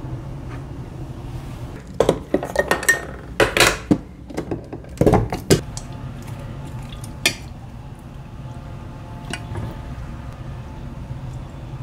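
Kitchen utensils knocking and clinking against a ceramic bowl and food containers while serving rice and kimchi: a quick run of sharp clatters about two to five and a half seconds in, then a few single clinks.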